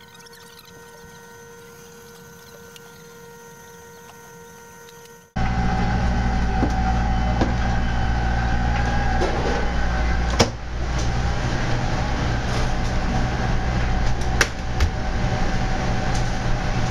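Faint steady hum of restaurant kitchen machinery that cuts abruptly, about five seconds in, to a much louder steady rumble of kitchen ventilation and refrigeration, with a few sharp knocks and clatters.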